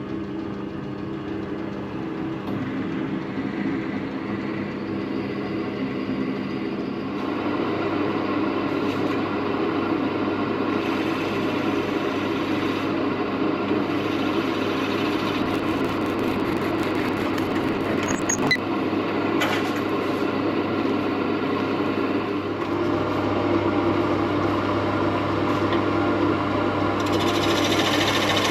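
Wood lathe running steadily with a large drill bit boring into a spinning blank of glued-up mixed timbers. The cutting noise builds after several seconds and grows louder again near the end as the bit goes deeper.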